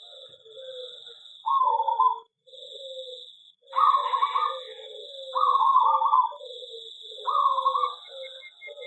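Zebra doves (perkutut) cooing in repeated rolling phrases, several overlapping, over a steady high-pitched whine that breaks off briefly a few times. A short run of quick faint chirps comes near the end.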